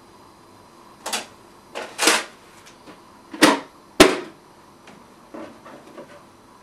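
A few sharp knocks or clatters, each brief. The loudest two come near the middle, and fainter ticks follow.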